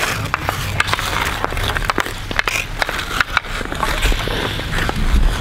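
Ice skate blades scraping and gliding on outdoor rink ice, with many sharp clacks of hockey sticks hitting the ice and puck. A low rumble near the end.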